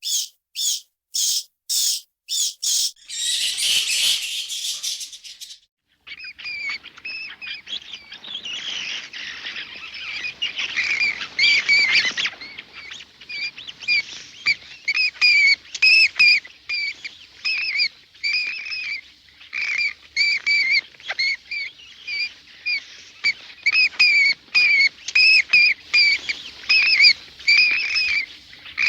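Bats squeaking and chattering: dense high chirps, several a second, each with a two-pitched ring. Before that, about three seconds of sharp evenly spaced clicks and a short hissy burst, then a brief gap.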